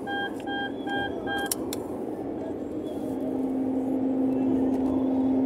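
Car driving, heard from inside the cabin: steady road noise under a rapid electronic beeping, about three beeps a second, that stops about a second and a half in with two clicks. A steady low hum comes in about halfway and the noise grows slightly louder.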